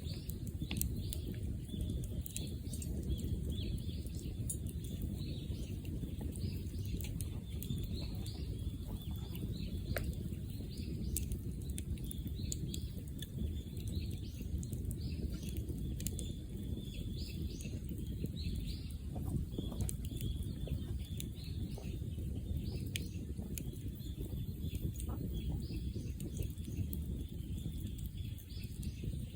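Bonfire burning: a steady low rumble of flames with scattered crackles and pops. Small birds chirp high over it throughout.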